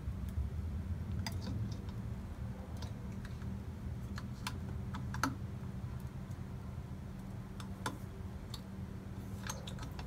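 Scattered sharp plastic clicks and snaps as a 1971 VW Beetle's horn button is pried out of the steering wheel hub with a small tool, over a steady low hum.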